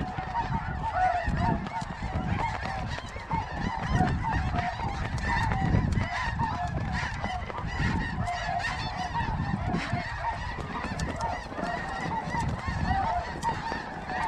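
A huge flock of snow geese calling overhead: a dense, continuous chorus of many overlapping honks with no break, while wind gusts buffet the microphone.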